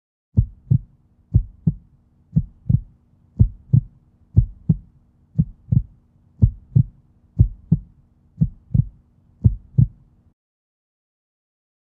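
Heartbeat sound effect: ten double thumps (lub-dub), about one a second, over a faint steady hum. It cuts off suddenly near the end.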